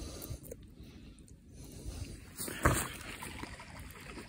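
Close handling noise: wet landing-net mesh and a carp being rustled and shifted, with small clicks and one heavier knock about two and a half seconds in.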